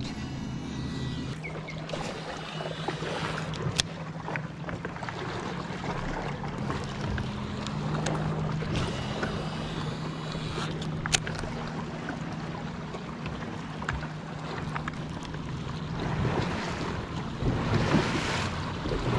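Bow-mounted electric trolling motor humming steadily, its pitch stepping up about eight seconds in, with a couple of sharp clicks. Wind on the microphone and water splashing grow louder near the end.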